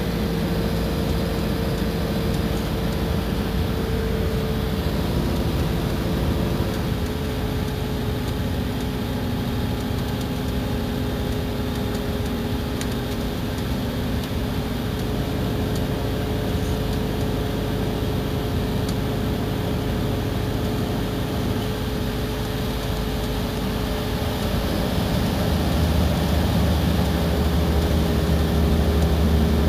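Iveco Crossway bus running along the road: a steady diesel drone with a constant whine above it. Near the end the engine grows louder with a deeper rumble.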